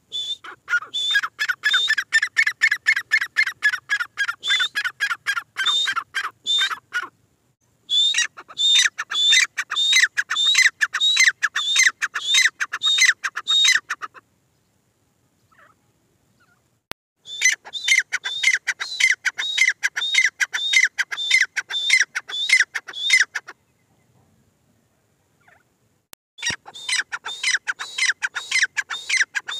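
Female grey francolin (teetar) calling: long runs of quick, sharp, repeated notes, about four to five a second, in four bouts broken by short silences.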